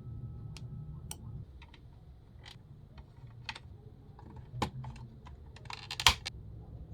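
Irregular small sharp clicks and taps of hard plastic, from handling the parts of a plastic toy cassette player, with a louder rattle of clicks about six seconds in.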